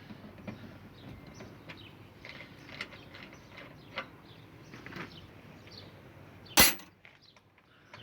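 Hand-tool work on the split air conditioner's pipe fittings: a run of small metallic clicks and scrapes, with one loud knock about six and a half seconds in.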